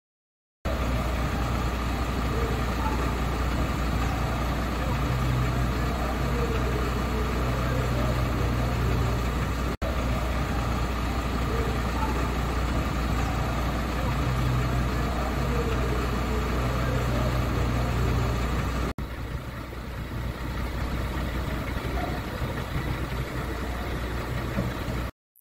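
Fire truck's diesel engine idling, a steady low rumble. It drops out briefly twice, about ten and nineteen seconds in, where the footage is cut.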